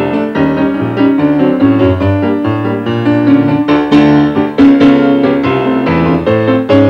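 Piano music: a busy run of notes over a moving bass line.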